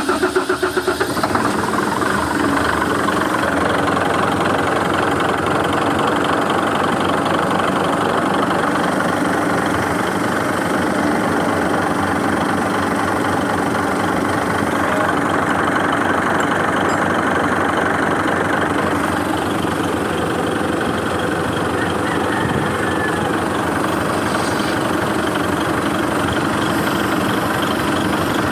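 Mitsubishi 6M70 inline-six diesel engine running at a steady idle just after starting, a little uneven for the first second before settling.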